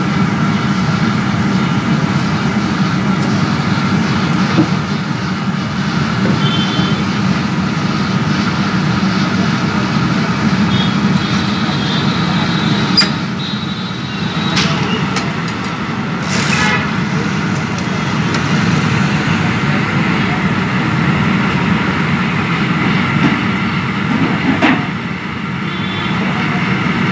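Steady roar of the fire jetting from a clay stove under a kadhai of hot frying oil, with a few sharp metal clinks in the second half and a few brief high beeps.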